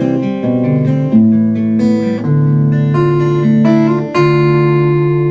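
Acoustic guitar strumming chords without singing, with a last chord struck about four seconds in and left to ring.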